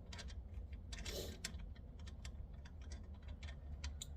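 Irregular light clicks and taps of metal parts being handled as a steering column is worked down into place, with a brief scraping sound about a second in, over a steady low rumble.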